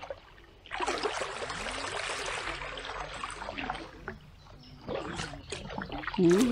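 Kayak paddle strokes in calm water: water rushing and trickling off the paddle blades, loudest for about three seconds near the start, then softer splashes and drips. A short vocal sound comes near the end.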